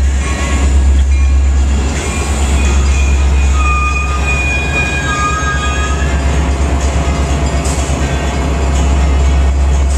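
Metra bilevel commuter train moving slowly along the platform, a steady low rumble with a brief high squeal about four seconds in.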